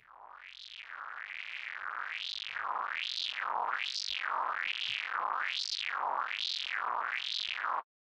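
ZynAddSubFX AdSynth synthesizer patch: a noise-like tone through a resonant bandpass filter, swept up and down by a filter LFO about once a second. It fades in over the first two seconds and cuts off suddenly near the end.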